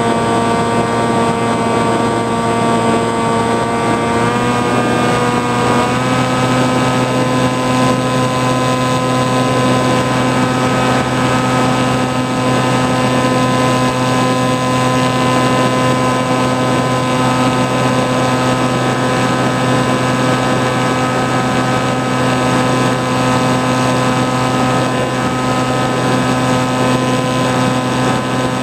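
FPV flying wing's motor and propeller running in flight, recorded from on board: a steady droning tone over a hiss of wind, stepping up in pitch twice, about four and six seconds in, then holding.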